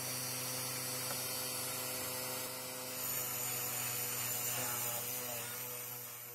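Rotary tool spinning a soft brass wire brush against a kerosene lamp's metal burner: a steady motor hum under the scratchy hiss of the bristles on the metal. The hiss grows about three seconds in.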